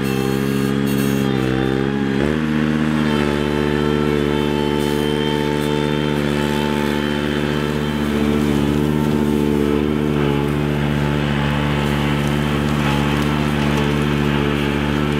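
Ventrac 4500 articulating tractor's engine running steadily under load as it pushes through deep snow and cattails. Its pitch steps up slightly about two seconds in.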